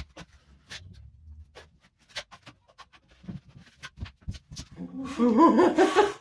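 Scattered light clicks and taps, then, near the end, a loud wavering vocal sound that lasts over a second.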